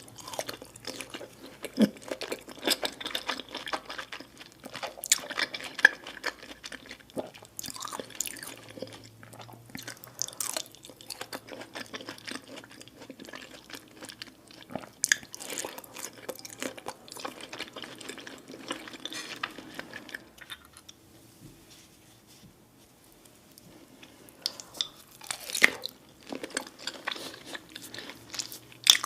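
A person chewing and biting food close to the microphone: irregular sharp clicks and wet mouth sounds, easing off briefly about three quarters of the way through before picking up again.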